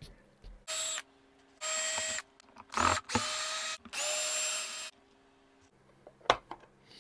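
Electric screwdriver backing out the screws of a guitar's control-cavity cover plate, in four short whirring runs of about a second or less each, with a click near the end.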